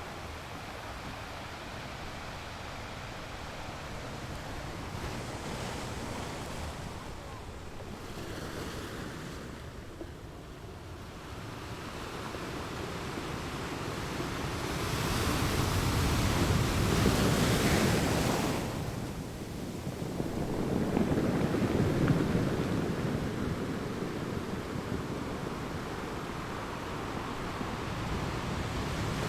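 Sea waves washing in and breaking as a steady surf, swelling to two louder breaks in the second half.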